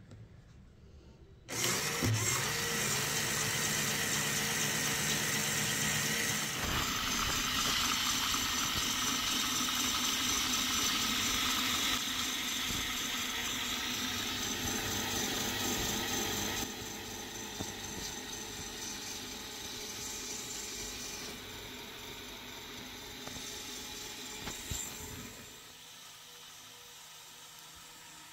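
LEGO medium linear motor driving the plastic gear train of a LEGO Technic Earth-and-Moon orrery: a steady mechanical whirring with gear chatter, a little loud. It starts about a second and a half in, drops in level a few times and is faint by the end.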